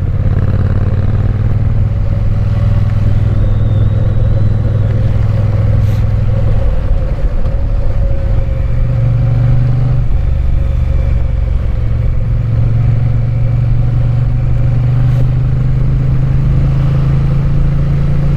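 Triumph Bonneville parallel-twin engine running steadily under way, heard from the riding motorcycle. Its pitch dips about seven seconds in, then climbs back and holds a little higher from about ten to twelve seconds on, as with a gear or throttle change.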